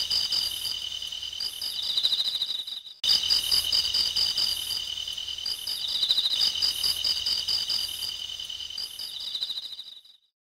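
Insects chirring: several high-pitched, steadily pulsing trills sounding together. They break off briefly about three seconds in and stop near the end.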